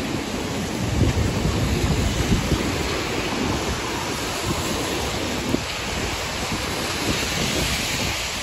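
Steady hiss of rain and wet city street, with wind buffeting the microphone in low rumbles that are strongest in the first few seconds.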